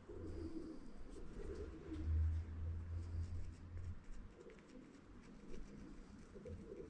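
A dove cooing softly in low repeated calls. A louder low rumble comes in about two seconds in and lasts about two seconds.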